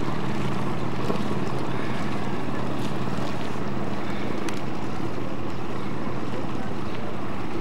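A motor cruiser's engine runs with a steady low drone as it passes on the river, fading after about four or five seconds. Wind buffets the microphone throughout.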